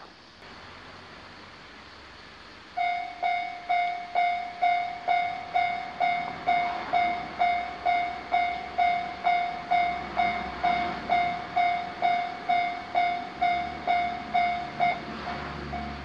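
Japanese railway level-crossing warning bell starting up and ringing in a steady alarm of about two strikes a second, growing quieter shortly before the end. A low rumble builds underneath it near the end as a train approaches.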